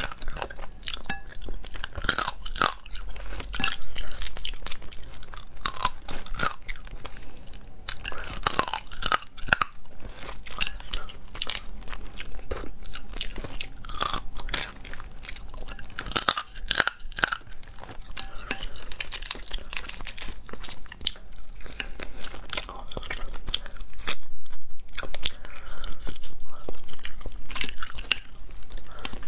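Close-miked chewing and crunching of cooked crab and shellfish legs, the thin shells cracking between the teeth, with a louder run of cracking near the end.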